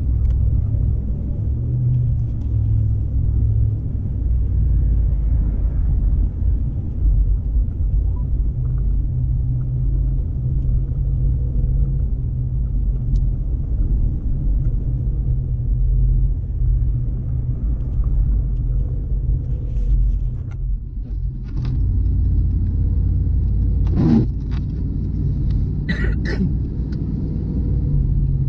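Steady low rumble of a car driving on a highway, with a short dip about three quarters of the way through and a few brief knocks near the end.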